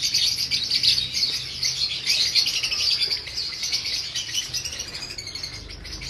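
Many caged lovebirds chattering together: dense, rapid, overlapping high chirps that grow a little quieter near the end.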